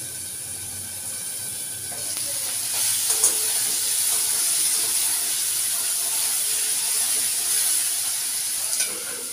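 Potatoes and onions frying and sizzling in an open pan, the sizzle growing louder about two seconds in as the lid comes off. A metal spatula clicks against the pan a few times as they are stirred.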